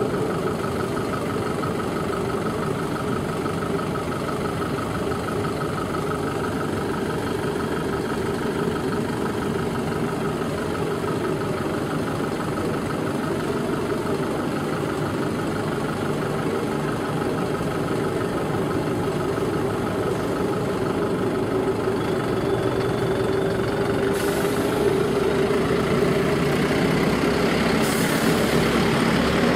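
Motor vehicle engine and road noise, a steady drone with an even hum that hardly changes, growing a little louder over the last few seconds.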